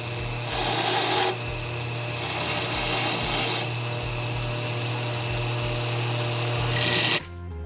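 Belt grinder running with a forged steel axe head pressed against the belt: a steady motor hum under a harsh grinding hiss that swells and eases as the steel is pressed on and lifted. The grinding stops abruptly near the end.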